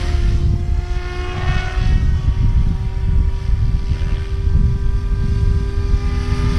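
Electric RC helicopter (SAB Kraken 580) in flight: a steady whine from its brushless motor and 603 mm main rotor, the pitch bending slightly about two seconds in, over a low rumble.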